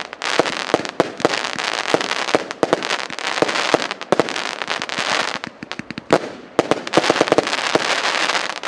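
Consumer firework battery ('Праздничный салют PC 6980') firing: sharp bangs several times a second over continuous crackling, thinning briefly about five and a half seconds in.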